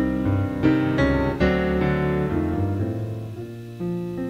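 Piano music, a run of notes and chords.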